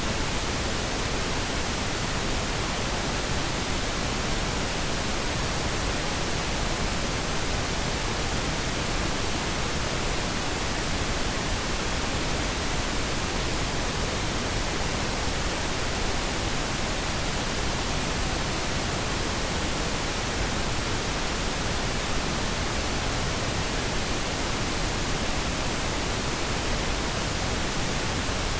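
Pink noise test signal for audio calibration: an even, unchanging hiss spread across the whole range from deep bass to high treble.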